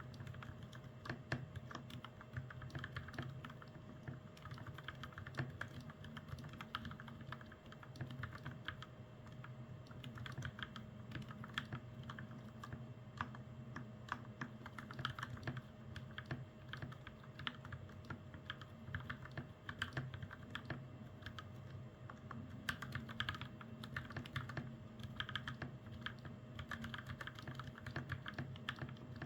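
Continuous typing on a hot-swappable mechanical keyboard with lubed Gateron Milky Yellow Pro switches and double-shot PBT keycaps: a steady, irregular patter of keystrokes, over a faint steady hum.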